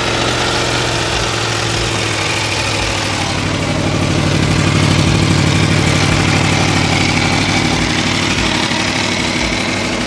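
Aprilia sport motorcycle engine running at idle, swelling slightly louder midway and settling back.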